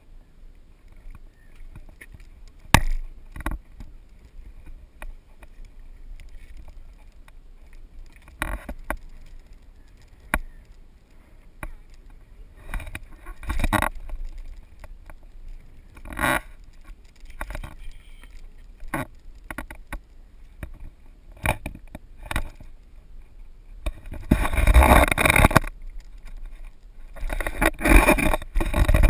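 Wind buffeting a handheld action camera's microphone, with scattered knocks and rubs from the camera being handled, over a faint steady low hum. Two longer, louder gusts come near the end.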